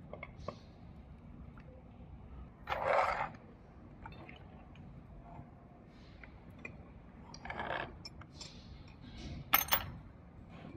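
Metal and plastic parts of an LG108 latch assembly handled on a desk: light clinks and small clicks, scraping about three seconds in and again around seven and a half seconds, then two sharp clicks near the end.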